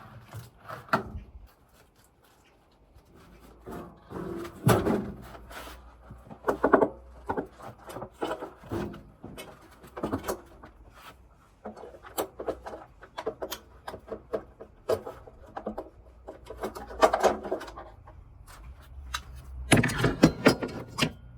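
Irregular knocks, clunks and clicks of a Bosch Exxcel washing machine being taken apart by hand, its panels and parts being handled and moved, with a dense cluster of knocks near the end.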